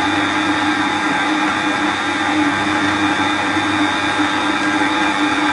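Electric stand mixer running at a steady low speed (setting 2), its motor humming evenly as the whisk beats eggs and sugar in a stainless steel bowl at the start of whipping.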